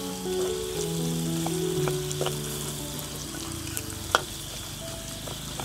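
Chopped garlic, chili and red onion frying in oil in a wok, sizzling steadily while a spatula stirs it. The spatula knocks sharply on the wok a few times, loudest about four seconds in.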